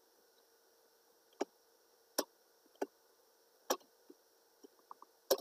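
Computer mouse clicking: about five sharp, single clicks at uneven intervals, with a few fainter ticks between them, as shapes are selected and dragged.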